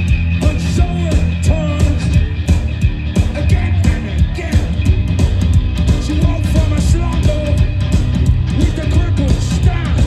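Punk rock band playing live on a festival stage: electric guitar, drums and a heavy bass low end, with a singer's voice over them.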